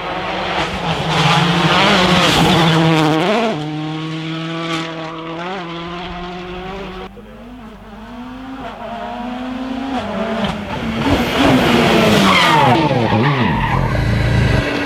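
Rally car engine revving hard on a special stage, its pitch climbing and dropping back at gear changes, with tyre squeal. It is loudest in the first few seconds and again near the end.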